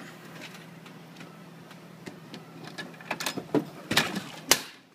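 Plastic clicks and knocks of a cup noodle and the vending machine's plastic parts being handled, a quick run in the second half with two sharper knocks near the end, over a low steady machine hum.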